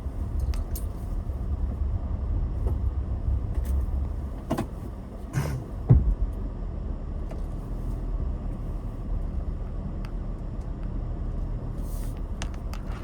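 A car's low, steady engine and road rumble, with a few sharp clicks and one louder thump about six seconds in.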